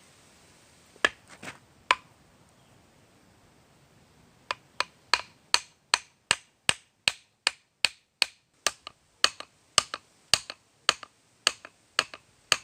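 Hammer strikes, sharp and dry: a few scattered blows, then a steady run of about two to three blows a second.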